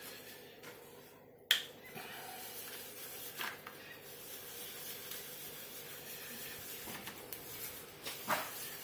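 Chalk line reel being wound in by hand, a faint steady rubbing hiss of the string, after a single sharp click about a second and a half in.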